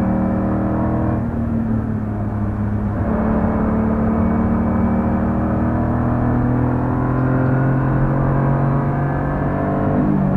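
BMW E46 328i's 2.8-litre straight-six heard from inside the cabin, running hard at speed. The engine note eases briefly about a second in, settles to a new pitch around three seconds in, and then climbs slowly as the car pulls on.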